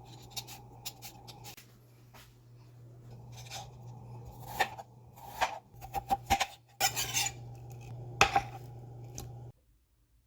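Kitchen utensils scraping and clinking against cookware in irregular strokes over a steady low hum, the sounds louder and closer together in the second half. Everything cuts off suddenly about nine and a half seconds in.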